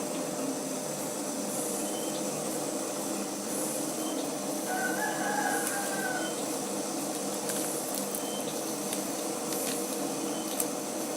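Steady background hiss and hum, with a single distant bird call lasting about a second and a half, about five seconds in.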